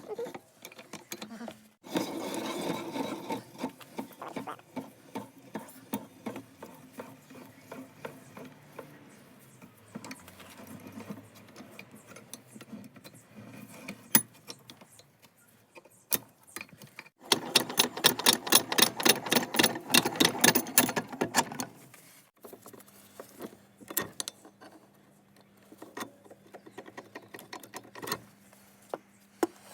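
Workshop sounds of work on a metal vice: a stretch of mechanical rattling, then a loud run of fast, evenly repeated scraping strokes in the middle, then a steady low hum with scattered clicks.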